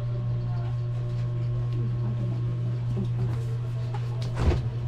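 A steady low hum with faint scattered handling noises, and one sharp knock about four and a half seconds in.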